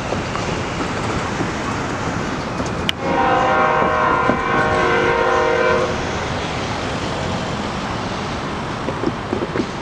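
Diesel locomotive horn sounding one long multi-note blast of about three seconds, starting about three seconds in, over the steady rumble of an approaching freight train.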